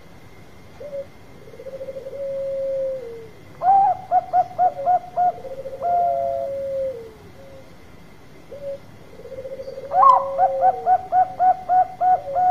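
Zebra dove (Bangkok-strain perkutut) singing two full song phrases. Each opens with a soft trilled note and a long low coo, then runs into a quick series of about six to eight short staccato coos, the loudest part, and ends in a longer note that falls away.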